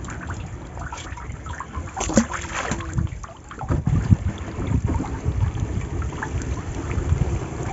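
Wet gill net being hauled in by hand over the side of a boat, with water trickling and splashing off the mesh and small irregular knocks as it comes aboard. Wind rumbles on the microphone.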